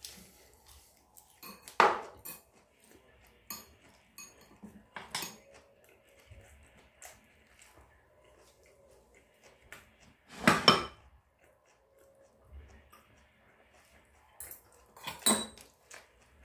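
Metal chopsticks clicking and knocking against dishes and bowls: scattered clinks with a few louder clatters, the loudest about ten seconds in.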